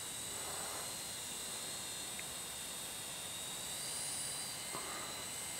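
Parrot drone's electric motors and propellers giving a steady high-pitched whine as it flies back towards the operators, the pitch rising briefly about four seconds in.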